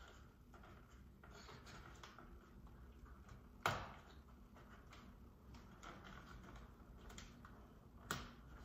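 Faint handling at a thermostat's wall plate, with two sharp clicks about four seconds apart, as wires are fitted into the Ecobee4 base plate's push-in terminals.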